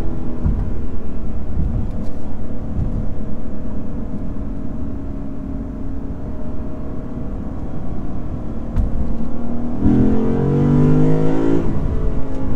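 Lexus IS500's naturally aspirated 5.0-litre V8 running at a steady cruise with road and tyre noise; about ten seconds in it rises in pitch and gets louder in a short burst of acceleration, then eases back off.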